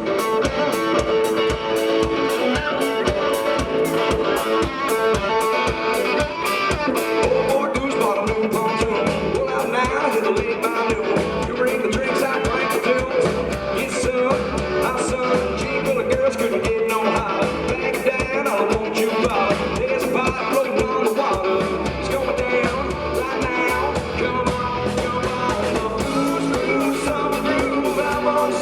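Live rock band playing: electric guitar and drums at a steady beat, with singing.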